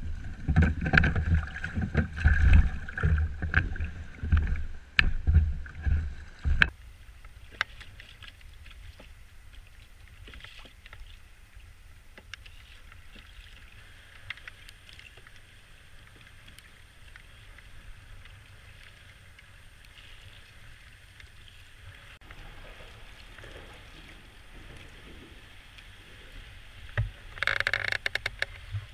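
Kayak on open water: wind buffeting the microphone in loud irregular gusts for the first several seconds, then a quieter steady hiss of wind and water, with a short louder burst near the end.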